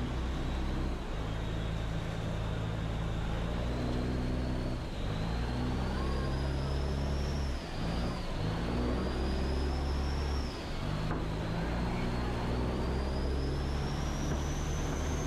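Chao Phraya Express boat's diesel engine running loud, its low note shifting up and down every few seconds, with a thin high whine that rises and falls and climbs steadily near the end.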